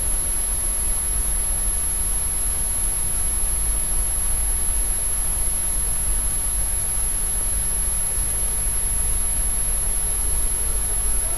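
Steady hiss over a low hum, with a faint high-pitched whine on top: background noise of the recording between recited phrases. A singing voice comes back right at the very end.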